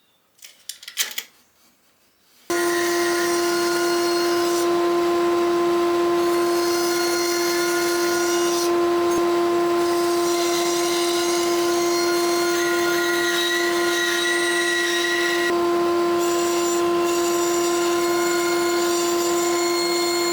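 Electric woodworking power tool running steadily with a constant hum, cutting a notch in a wooden hive entrance block. It comes in abruptly about two and a half seconds in, after a few faint clicks.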